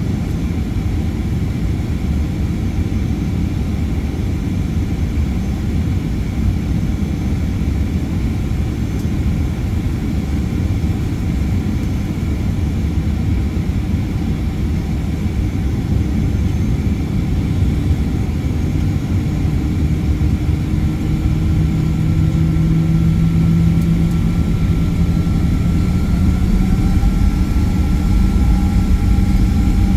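Cabin noise of a Boeing 737-900ER's CFM56-7B jet engines heard from a window seat by the wing: a steady low rumble. About two-thirds of the way in, engine whines come up and rise slightly in pitch as the sound grows louder, a sign of thrust being added.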